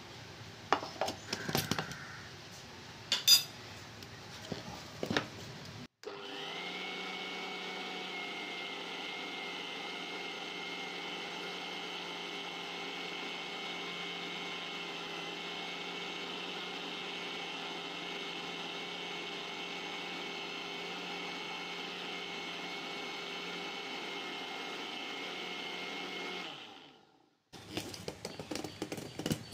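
Indian mixer grinder (mixie) running with its steel jar, grinding sugar and chocolate powder fine: it spins up quickly about six seconds in, runs steadily for about twenty seconds, then winds down. Before and after, the steel lid and jar clink and knock as they are handled.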